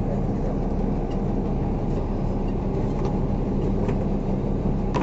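Fishing boat's engine running steadily, a low even hum, with a few faint light ticks over it.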